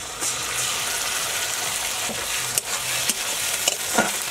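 Ground ginger-garlic and dried red chilli paste sizzling as it hits hot mustard oil and fried onions in a metal kadai. The sizzle rises just after the start and holds steady, with a spatula clicking against the pan a few times as it is stirred.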